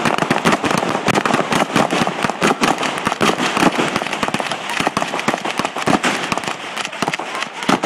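Several guns firing at once in a rapid, continuous volley, the shots overlapping into a dense crackle many times a second without a break.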